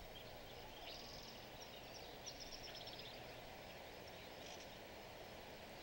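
Faint open-air ambience: a low steady hiss with small birds chirping high up in short, quick twittering phrases that come and go.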